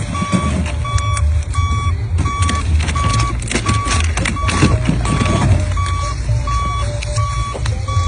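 Vehicle backup alarm beeping at an even pace, one steady tone about every 0.7 seconds, over the low rumble of a running engine.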